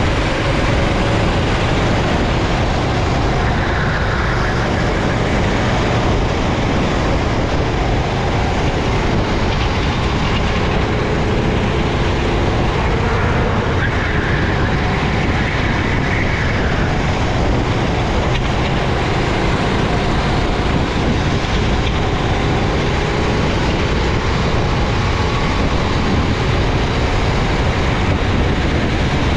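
Racing kart engine running hard, heard onboard, its pitch rising and falling through the laps under a steady wash of wind and road noise.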